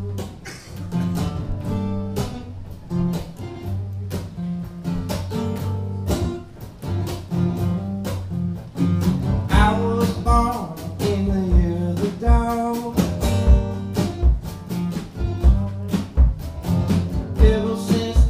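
Live acoustic band: two acoustic guitars strummed and picked, a man's singing voice coming in about halfway through, and a bass drum beating steadily under the second half.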